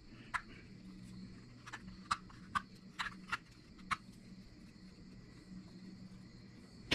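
Knife taking small cuts in a cherry spoon blank: a scattered series of short, crisp clicks, bunched between about two and four seconds in, over a faint steady low hum.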